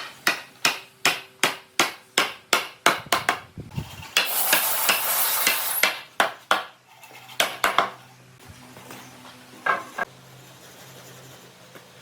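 Hammering: about a dozen sharp blows in a quick steady run, a little under three a second. Then a hiss of about two seconds and a few scattered knocks.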